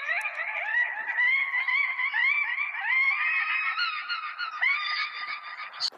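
A dense chorus of many overlapping honk-like calls, their pitches sliding upward again and again, which stops suddenly at the very end.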